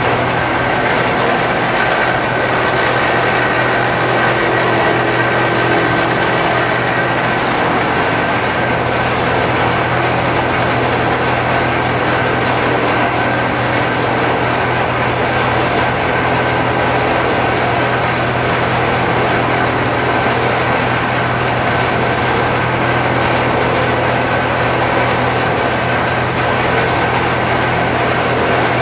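Absorbent cotton lap forming machine running steadily: a constant mechanical drone with a steady low hum and a thin, steady higher whine.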